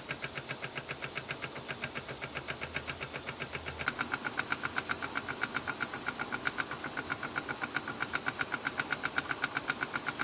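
Cyldon 13-3 toy stationary steam engine running smoothly on steam: its single oscillating cylinder gives a fast, even stream of exhaust puffs over a steady hiss. The puffs grow louder and hissier about four seconds in.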